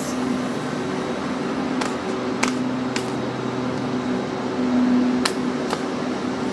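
A steady mechanical hum, like a fan or air conditioner running, with five short sharp clicks scattered through it.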